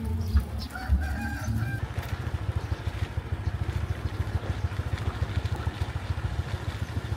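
A small engine running with a rapid, even low putter from about two seconds in, after a few short pitched calls at the start.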